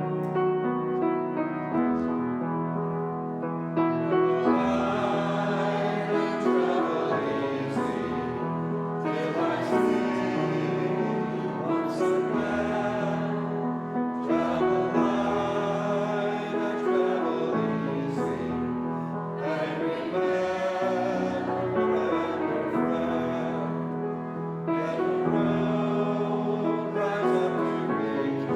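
A hymn with piano: a short piano introduction, then a congregation singing the sung blessing together from about four seconds in, over the piano accompaniment.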